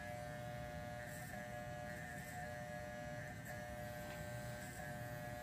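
Corded electric hair trimmer buzzing steadily as it cuts hair close to the scalp.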